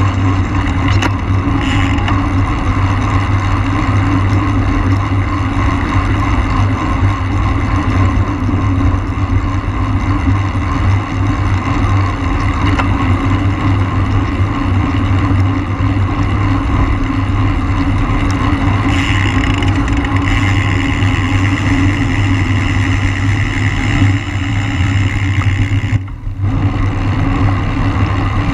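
Steady wind rush on the microphone of a camera riding on a road racing bike at race speed, dipping briefly near the end.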